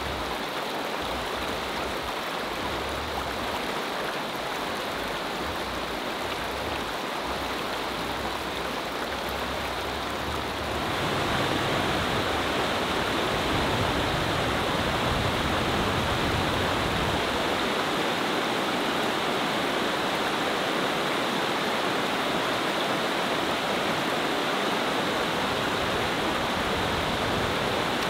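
Fast creek water rushing over rocks and riffles, a steady hiss of white water. It gets louder about eleven seconds in and stays at that level.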